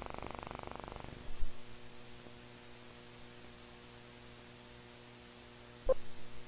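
Steady mains hum and hiss from an old film's optical soundtrack as the countdown leader runs. A rapid buzz in the first second ends in a thump. Near the end comes one short beep, the leader's sync pop.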